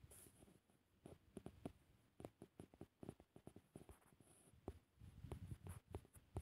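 Near silence with faint, irregular taps and clicks: a finger tapping and drawing on a phone's touchscreen, picked up by the phone's own microphone.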